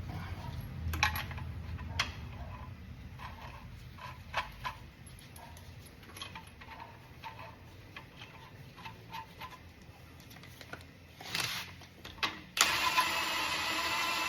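Light clicks and knocks of a wheel and its nuts being handled, then near the end a cordless impact wrench runs in a short burst and then steadily, spinning on the rear wheel nuts of a Toyota Prado.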